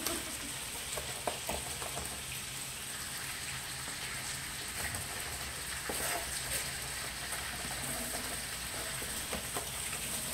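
Chicken breast and shallots sizzling steadily in a hot skillet on a gas stove, a continuous frying hiss. A few light, scattered knife taps from garlic being chopped on a cutting board sound over it.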